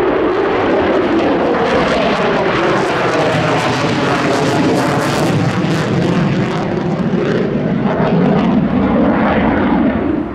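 F-16 fighter jet passing close by with loud, rough engine noise that crackles as it goes over around the middle, its pitch sliding down as it draws away.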